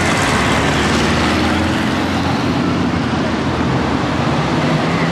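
Large motorcycle engines running together, a steady, dense din with a low rumble.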